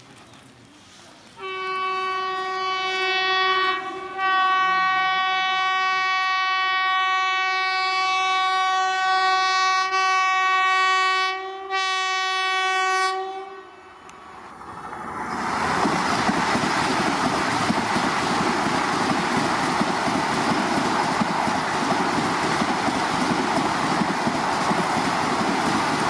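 Vande Bharat Express electric trainset horn held on one steady note for about twelve seconds, with a couple of brief breaks. The train then passes at speed, a loud steady rush of wheels and air.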